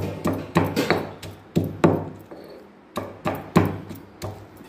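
Stone pestle pounding roasted green chillies, garlic and coarse salt in a heavy stone mortar (khalbatta). It makes a run of dull knocks, a few a second, with a pause of about a second in the middle.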